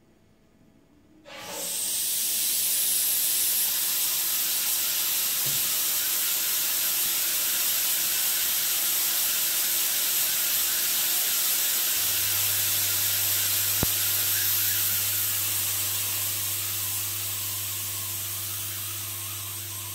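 Steam from a Gebhardt steam generator hissing as it is blown through a lance into the bung hole of an oak barrique barrel. It starts suddenly about a second in and stays steady, with a low hum joining about halfway and the hiss fading slowly near the end.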